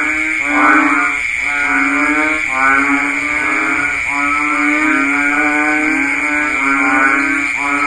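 Banded bullfrogs (Asian painted frogs) calling in chorus: low, drawn-out, bellowing calls, each under a second long, about one a second and overlapping one another. A steady high buzz runs underneath.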